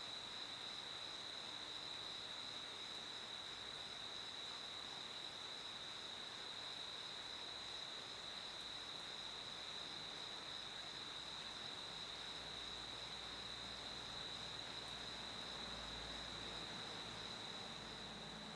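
Cricket singing one unbroken, steady high-pitched trill over faint background hiss.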